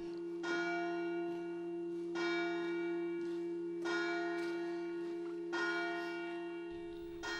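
A church bell tolling slowly, struck about every second and three quarters, each stroke ringing on over a steady hum into the next.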